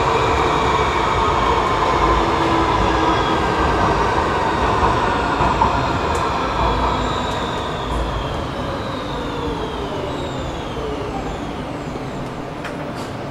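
Rotterdam metro train heard from inside the carriage, running and then braking into a station: the electric drive's whine glides down in pitch over the second half while the running noise gradually eases.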